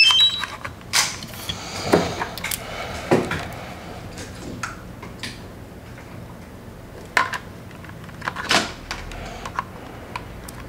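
A quick run of electronic beeps at the start, then scattered light clicks and knocks of hands handling the drone and tools on a workbench.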